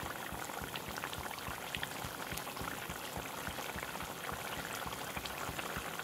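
Matar paneer gravy boiling vigorously in a pan: a steady bubbling made of many small irregular pops.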